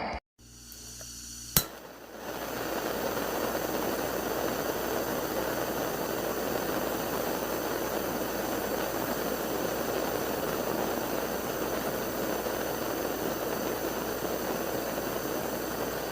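A single sharp click, then a steady rushing hiss that starts about two seconds in and holds evenly, like a jet of gas or steam.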